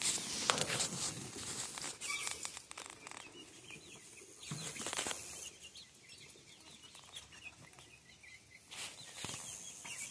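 Young chickens chirping and clucking softly as they peck at scattered feed, with a few brief rustles.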